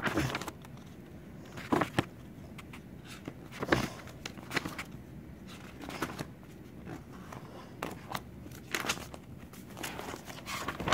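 Phone handling noise: scattered clicks, knocks and short rustles, every second or two, as hands move about and brush the phone's microphone.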